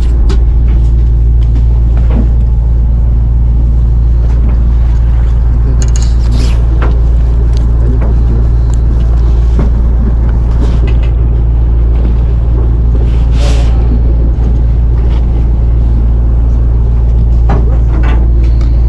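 Fishing boat's engine running with a steady low drone, with a few short clicks and knocks over it.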